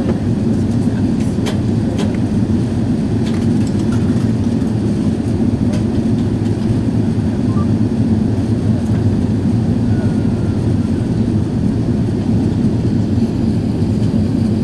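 Steady low rumble of engine and airflow noise heard inside the cabin of an Airbus A380 airliner on its approach to land, with a few faint clicks in the first few seconds.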